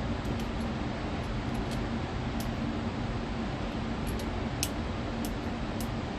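Steady ventilation-fan hum with scattered faint sharp clicks: a Colt Single Action Army revolver being loaded, its cylinder clicked round and cartridges slid in through the loading gate.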